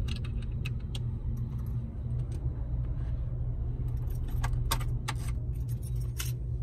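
A parked car's engine idling as a steady low hum inside the cabin, with scattered light metallic clicks and jingles, more of them in the second half.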